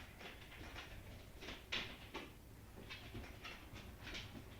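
Quiet room tone: a low steady hum with a few faint, soft clicks scattered through it.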